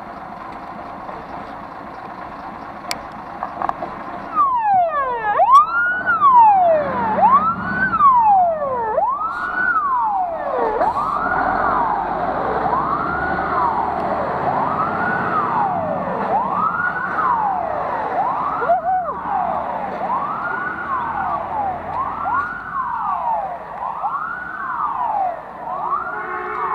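A fire engine's siren comes on about four seconds in and wails up and down in pitch, about once a second.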